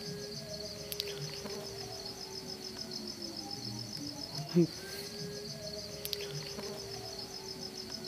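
Crickets chirping in a steady, fast-pulsing high trill, over a faint low steady tone that sags in pitch at its end twice. A short thump about four and a half seconds in.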